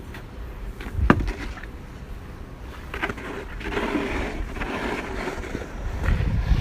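Wind rumbling on the microphone, with a sharp knock about a second in and two longer stretches of rough scraping noise later on.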